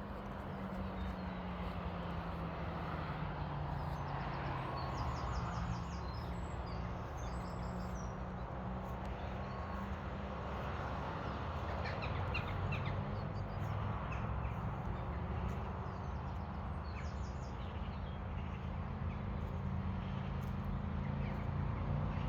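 Outdoor ambience: a steady low engine drone, with scattered high bird chirps and short rapid trills.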